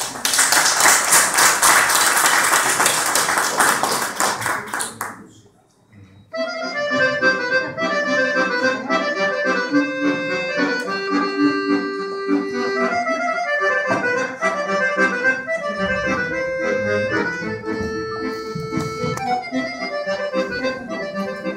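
Audience applauding for about five seconds, then, after a brief lull, a piano accordion starts playing a tune, melody over held lower notes, and carries on.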